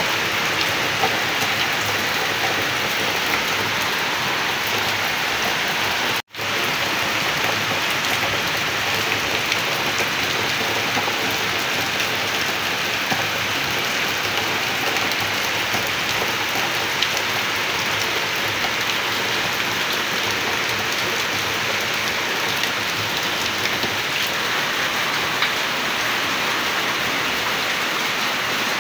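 Heavy rain falling steadily on corrugated metal roofs and a flooded paved yard. The sound cuts out for a split second about six seconds in.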